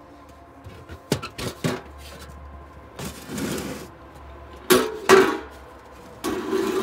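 Galvanized metal ash can and its lid clanking as they are handled and knocked, with a few sharp metal knocks early on, two louder clanks about five seconds in, and short bursts of scraping as the can is shifted along the ground.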